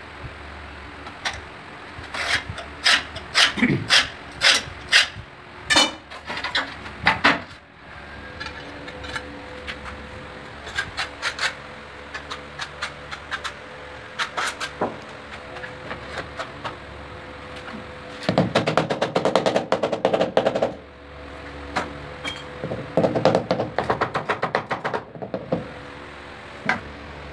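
Hand work on ceramic tile: a run of sharp taps and clicks in the first seven seconds or so, then two spells of rapid scraping in the second half.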